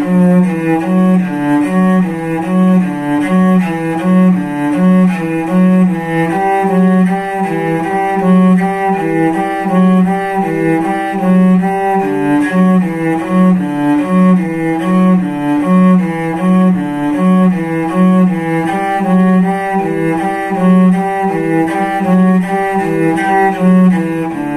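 Solo cello played détaché in the middle of the bow: a steady run of separate, evenly spaced bowed notes moving between neighbouring pitches, as a warm-up exercise for coordinating the two hands.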